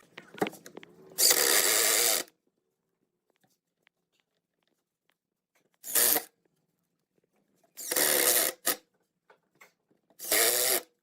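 Power drill running in short bursts, five of them, the first and longest lasting about a second, each with a whining motor pitch under the noise of the bit working wood.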